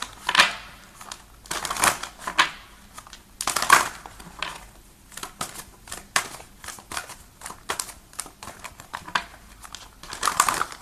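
Tarot cards being shuffled by hand: a few bursts of shuffling in the first four seconds, a run of light quick card clicks and flicks in the middle, and another burst of shuffling near the end.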